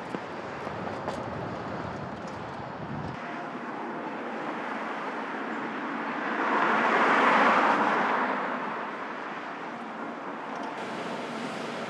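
Steady street ambience with a car passing by: a whoosh that swells and fades away about halfway through.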